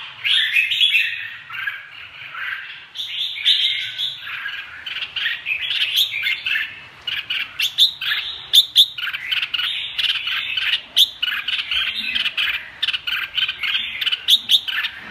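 Red-whiskered bulbuls singing and chirping in a near-continuous run of quick, bright notes, with sharper calls scattered through it.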